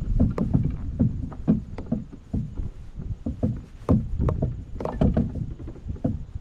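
Pedal-drive kayak being pedaled: a run of irregular knocks and clunks, a few a second, from the drive and hull, over a low rumble.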